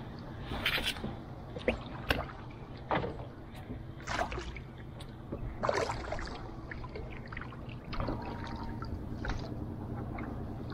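Wooden paddle dipping and pulling through the water beside a small wooden canoe: about six short splashes at irregular intervals, over a low steady rumble.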